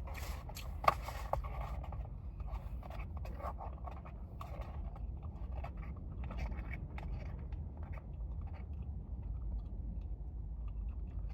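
A person chewing food close to the microphone, with irregular wet mouth clicks and smacks; the sharpest click comes about a second in.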